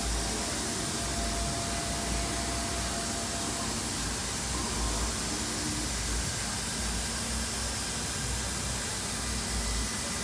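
MultiCam MG-series CNC router running: a steady rushing noise from the spindle and its dust-extraction air, with a faint high whine.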